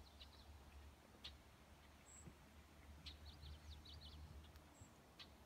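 Faint songbird singing: two quick phrases of short high notes, the second about three seconds in, with a few sharp high chips between them, over a steady low rumble.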